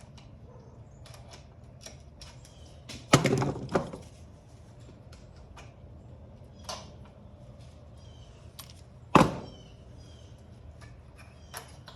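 Tools and parts being handled during a dirt bike teardown: scattered light clicks, and two loud clanks. The first comes about three seconds in, with a short rattle after it; the second comes about nine seconds in. A smaller knock falls between them.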